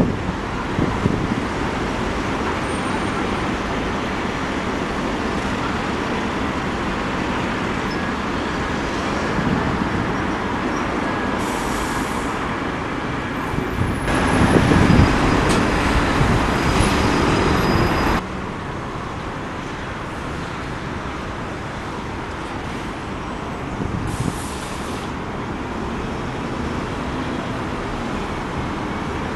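Buses running and pulling through a bus station forecourt, with a steady background of engine and traffic noise. A louder stretch of engine noise from about 14 to 18 seconds cuts off suddenly. Short hisses come about 12 seconds in and again about 24 seconds in.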